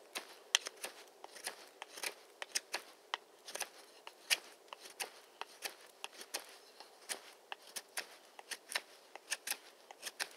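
Small scandi-ground knife of 9KhF carbon tool steel whittling a point on a firm, sound stick: short, crisp shaving strokes of the blade through the wood, about three a second.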